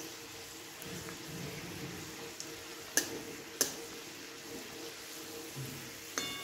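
Dried red chillies, garlic and spices frying in hot oil in an aluminium kadhai for a tadka (tempering): a steady low sizzle. A spatula stirs and knocks sharply against the pan twice about three seconds in, and there is a short metallic clink near the end.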